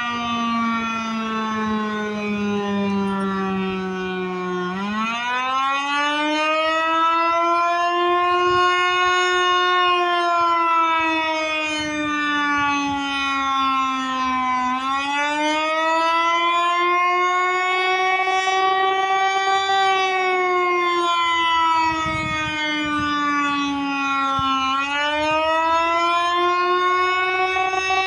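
American Signal Eclipse 8 electronic outdoor warning siren sounding a wail in a test. It is a single tone with overtones that sweeps slowly up and down, about ten seconds per rise and fall, turning sharply upward at each low point.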